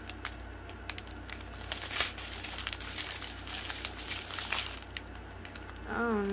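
Small plastic bags of diamond painting drills crinkling and rustling as they are handled and sorted, with scattered light clicks. A short hummed 'mm' with a wavering pitch comes in near the end.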